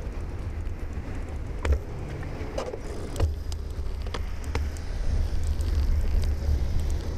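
Ride noise on a camera mounted on a moving bicycle: a steady low rumble of road and wind on the microphone, with several sharp knocks and rattles as the bike goes over bumps in the road. The rumble grows louder in the second half.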